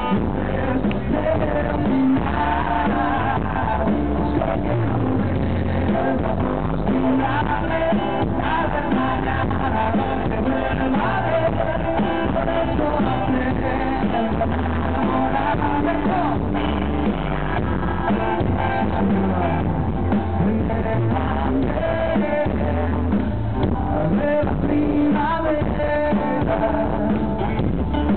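Live rock band playing: a man sings into a microphone over electric guitar and drums.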